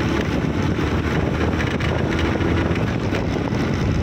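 Wind rushing over an unshielded microphone on a moving TVS Apache RTR 160 motorcycle, its single-cylinder engine running steadily underneath.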